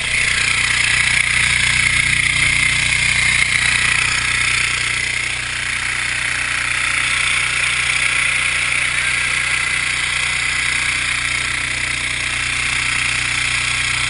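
Steady hiss of water jetting from a firefighting nozzle under pump pressure, over the steady hum of a motor running underneath. The hiss is loudest for the first five seconds or so, then eases off a little.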